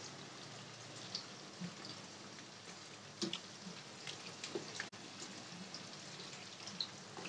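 Faint wet squelches and small drips as a bare hand mixes raw mutton into yogurt and spices, a few soft clicks scattered over a steady low hiss.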